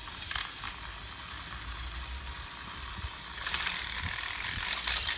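Motorised toy Thomas engine's small electric motor and plastic gears whirring with a ratchety rattle. A click comes just after the start, and it grows louder and more clattery from about three and a half seconds in as the engine runs along the plastic track.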